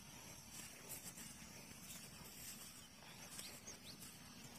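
Faint open-field ambience, close to silence: a few short high bird chirps and a thin steady high tone over a low rumble, with faint clicks.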